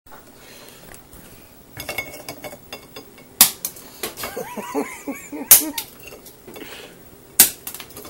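Sharp, hard knocks and clacks on hard surfaces: lighter clicks about two seconds in, then three loud knocks roughly two seconds apart, with a voice heard briefly between the first two.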